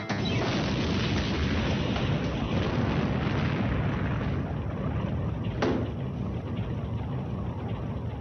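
A loud, steady rush of noise, strongest in the low end, its hiss thinning over the first few seconds, with a single sharp click about five and a half seconds in.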